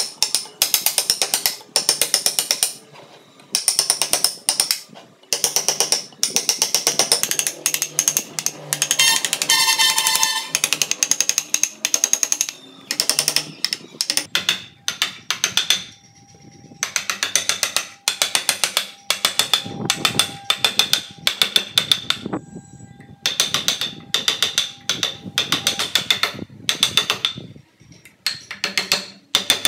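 Hand carving chisel being tapped rapidly into wood, a fast run of sharp clicks in bursts with short pauses as chips are cut away. A brief ringing tone sounds about nine seconds in.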